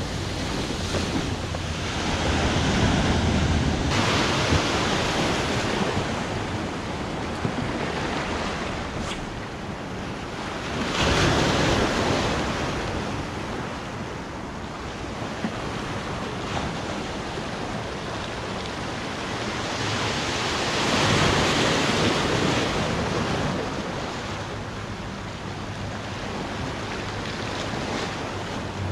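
Sea waves breaking and washing on the shore, surging up three times, with wind buffeting the microphone.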